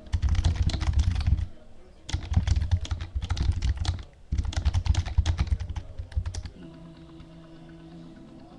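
Fast typing on a computer keyboard close to the microphone, in three quick bursts of rapid key clicks with short pauses between, stopping about two-thirds of the way through.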